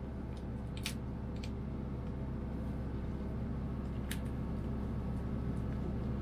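Spiny lobster shell cracking and clicking a few times as the tail is twisted from the body, over a steady machine hum.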